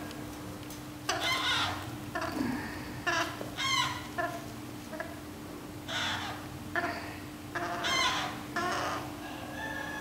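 Red-breasted parakeet chick giving a string of short calls, a dozen or so, about one every half second to a second, while it is hand-fed.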